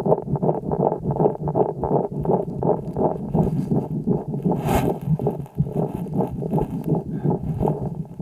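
Calf's lung sounds picked up through a homemade stethoscope microphone on the chest, on the first day of a respiratory illness: breathing noise dense with short crackling clicks. A brief louder rustle comes about halfway through.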